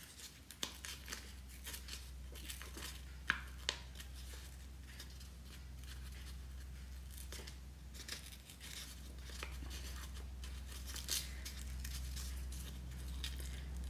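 A strip of paper being torn slowly by hand in short pulls: a run of small crackles and ticks, tearing out a rounded shape.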